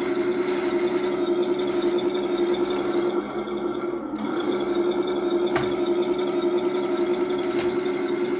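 Heng Long 1/16 RC tank crawling over a box: a steady whine of its small electric drive motors and gearboxes, easing off briefly about three seconds in. Two short clicks come near the middle and towards the end.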